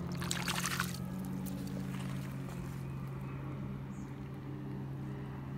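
A stone arrowhead rinsed in shallow lake water: a short splashing swish in the first second. Under it a boat engine drones steadily.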